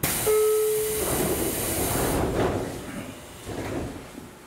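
Side doors of a JR Kyushu 811 series electric train closing. A sudden loud hiss lasts about two seconds, with a short steady tone in the first second, then the doors thud shut about two and a half seconds in, with a softer bump a second later.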